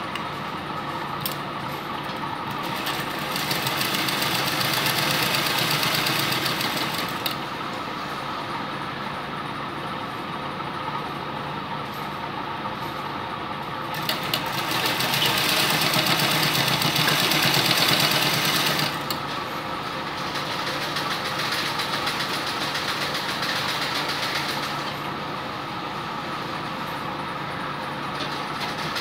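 Sewing machine running and stitching fabric, a steady mechanical hum with the needle's rapid clatter; it grows louder twice for a few seconds, about three seconds in and again around the middle.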